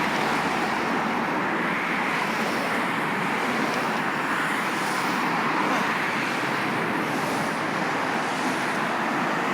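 Steady road traffic noise: cars passing on a street, an even rushing hiss that swells and eases slightly.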